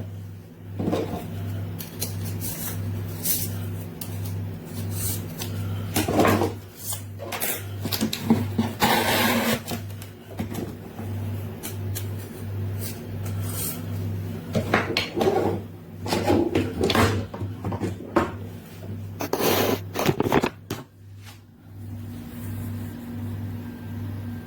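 Kitchen knives and their plastic blade guards being handled: scattered rubbing, sliding and clicking noises over a low hum that pulses about twice a second.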